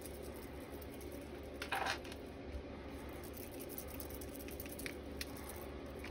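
Faint handling sounds of fingers pressing and smoothing a sheet of wet, ink-soaked paper on a craft mat, with one brief louder wet scuff about two seconds in and a few light ticks later on.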